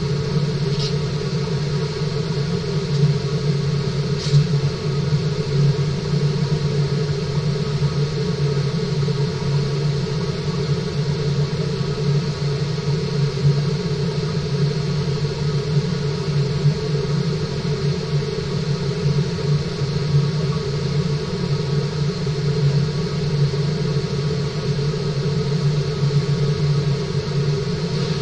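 Steady low hum with a rushing noise, unchanging throughout, as picked up by an underwater webcam in a fish-farming tank. It is the tank's constant water flow and machinery. Two faint ticks come about one and four seconds in.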